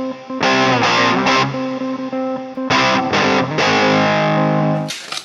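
Music: electric guitar chords struck and left ringing, with a distorted tone. It stops abruptly near the end and gives way to a hiss.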